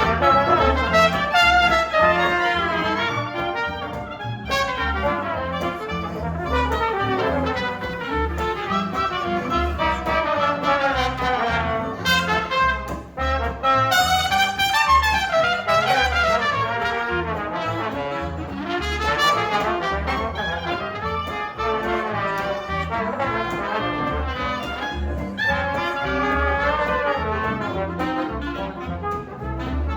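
Live jazz band playing, with a brass horn carrying a winding melodic line over a steady bass line.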